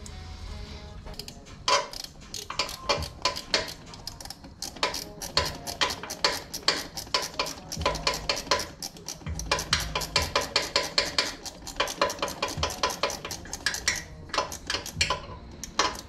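Hand ratchet clicking in quick runs, about five clicks a second, tightening the AC compressor's mounting bolts, with a few dull knocks of metal against metal.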